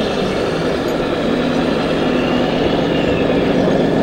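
Radio-controlled model Scania truck driving, a steady low engine-like hum that grows a little louder in the second half as it comes closer.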